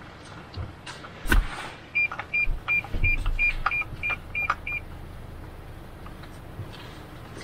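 Car's parking sensor beeping in a quick series of short, even high beeps, about three a second, warning of an obstacle close by, over the low rumble of the car's cabin. A single thump comes about a second in.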